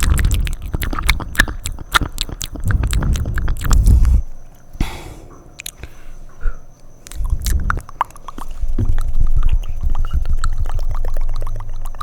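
Close-miked wet mouth sounds: rapid tongue clicks and smacks, dense for about four seconds, then a quieter pause with a short breath, then the clicking resumes.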